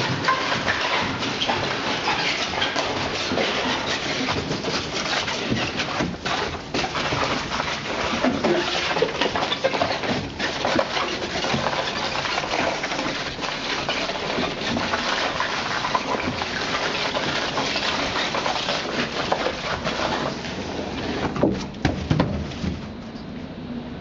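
A cardboard-boxed painting dragged across a polished concrete floor: a continuous rough scraping and scuffing with uneven surges and a couple of brief dips. It stops shortly before the end, leaving a faint steady hiss.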